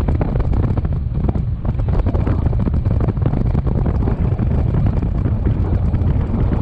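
Strong wind buffeting the microphone: a loud, continuous low rumble that flutters with the gusts.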